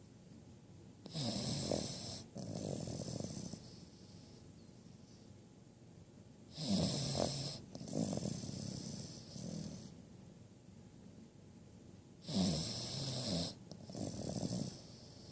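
Cavalier King Charles Spaniel puppy snoring in her sleep. Three slow snoring breaths come about five and a half seconds apart, each in two parts, with a hoarse rasp over a low rumble.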